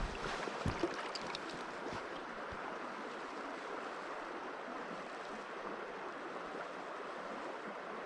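Trout stream's water running steadily, an even rushing hiss, with a couple of faint knocks in the first two seconds.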